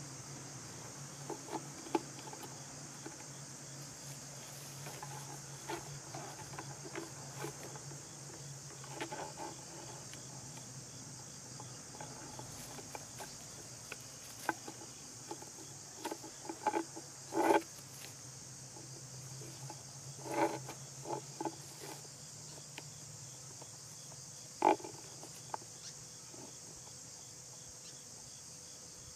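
Insects trilling steadily in the background, with irregular knocks and taps scattered through, the loudest a little past halfway and again about three-quarters of the way in.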